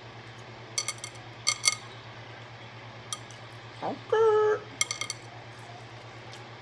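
Short ringing clinks of small hard objects knocking together, a few at a time in quick groups.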